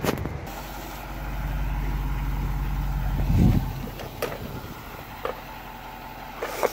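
Medium-duty work truck's engine running as it drives past close by: a low, steady drone that swells about a second in and fades away after three and a half seconds. A few sharp ticks follow.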